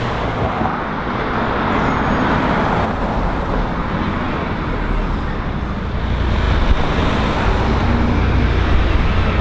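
Road traffic noise: passing cars, a continuous mix of tyre and engine noise with a low rumble that strengthens from about six seconds in.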